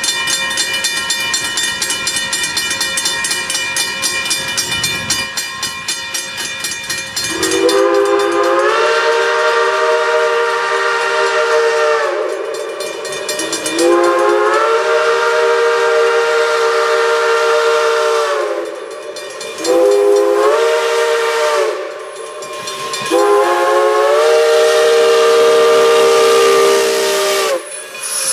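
A grade-crossing bell rings steadily. Then the three-chime logging whistle of a 4-4-0 steam locomotive blows the crossing signal, long, long, short, long, each blast sliding up in pitch as it opens.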